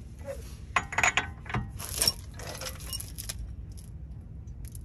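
Metal tools clinking and rattling as a breaker bar and socket are handled and fitted onto the axle nut: a quick run of sharp clinks about a second in, more through the middle, and a few faint ticks near the end.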